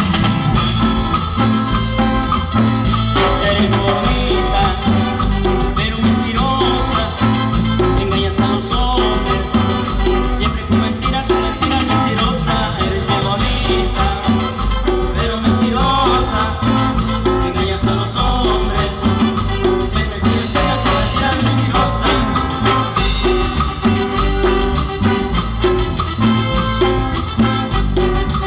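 A Latin dance band playing live, with a steady bass line and drum beat.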